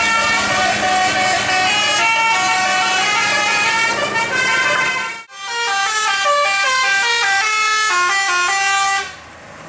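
Tour bus telolet basuri musical air horn playing a quick melody of stepping notes. It breaks off for an instant about five seconds in, plays another tune, and cuts off just before the end.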